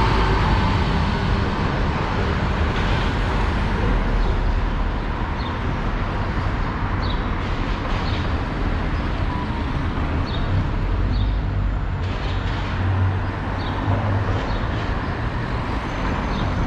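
Street traffic: car engines and tyres passing, over a steady low rumble. The loudest passing vehicle is at the very start, and a few short high chirps are scattered through.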